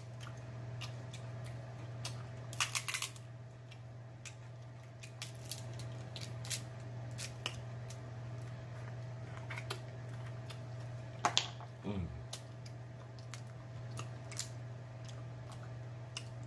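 Fingers peeling cooked shell-on shrimp, the shells crackling and clicking in scattered small snaps, with denser bursts a few seconds in and again about eleven seconds in, amid close-up eating mouth sounds. A low steady hum lies underneath.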